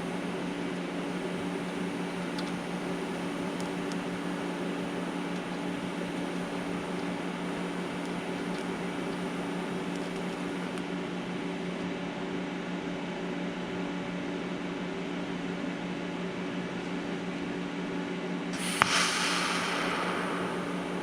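A steady mechanical hum, like a fan or motor running. Near the end there is a sharp click followed by about two seconds of hiss.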